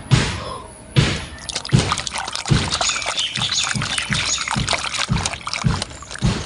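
Water sloshing and splashing in a steel bowl as a hand scrubs plastic toy animals in it, busiest through the middle, with repeated low knocks and clicks of the toys against the bowl.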